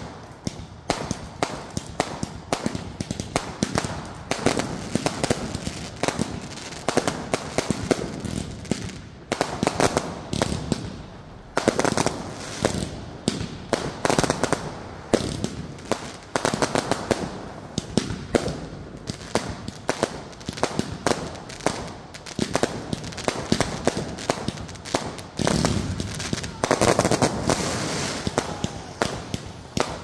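Aerial fireworks bursting overhead in a dense, unbroken series of bangs and crackles.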